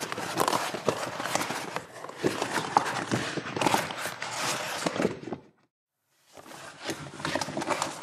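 A rubber mask being pulled on, the rubber rubbing and crackling with many small irregular clicks. It runs in one bout of about five seconds, stops for about a second, and starts again in a second bout near the end.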